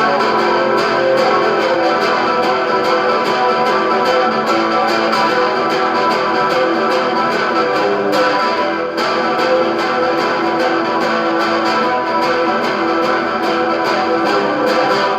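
Electric guitar played through a 1960s Supro Super amplifier: a steady stream of rapidly picked notes.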